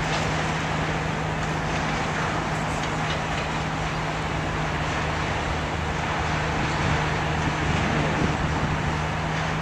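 Freight train of autorack cars rolling steadily past, a constant rumble of steel wheels on the rails with a steady low hum underneath.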